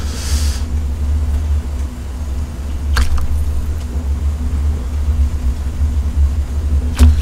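Steady low rumble from large pots of ramen boiling on portable gas burners. A metal ladle clinks against a pot about three seconds in and again near the end, with a brief hiss at the start.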